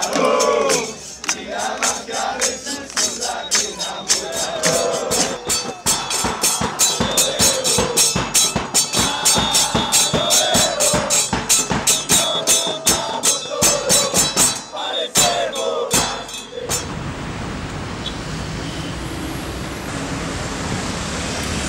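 A crowd of football fans chanting in unison to a bass drum and a cymbal beaten in a fast steady rhythm. At about 16.5 s the chanting and drumming stop abruptly and steady city traffic noise takes over.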